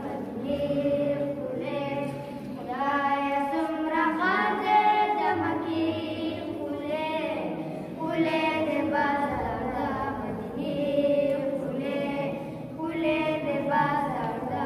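Two boys singing a Pashto devotional song (naat) about Mecca together, unaccompanied, in long melodic phrases with held notes.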